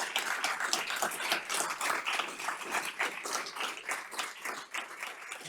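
Audience applauding, many hands clapping, gradually fading away.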